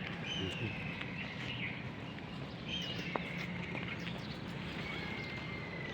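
Three high, thin, drawn-out animal calls, each about a second long and falling slightly in pitch, over steady background noise.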